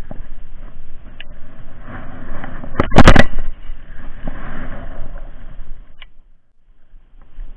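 Handling noise on a body-worn camera: a jacket rubbing and brushing against the microphone, with one loud sharp knock on the camera about three seconds in.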